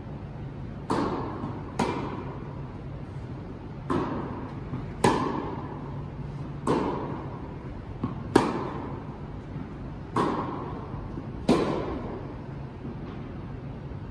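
Tennis rally: balls struck by rackets and bouncing on the court, about eight loud hits spaced one to two seconds apart with fainter thuds between, each ringing out in a long echo in the indoor hall. A low steady hum runs underneath.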